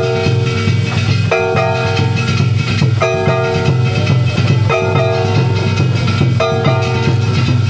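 Japanese festival float music (hayashi): a steady, fast drum beat under a ringing, pitched phrase that comes back about every second and a half to two seconds.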